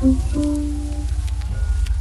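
Background music: a melodic line of plucked or sustained notes over a steady, pulsing bass.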